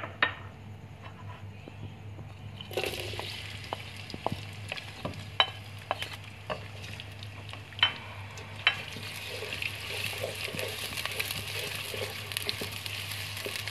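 Sliced onions start sizzling in hot oil in a non-stick pot about three seconds in, with sharp taps as they are tipped in and stirred with a wooden spatula. The sizzle grows louder from about nine seconds in.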